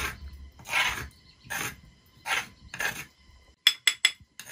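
A small utensil scraping across a stone grinding slab in about five short strokes, gathering ground spice paste. Near the end come three sharp metallic clinks as it knocks against a metal ladle.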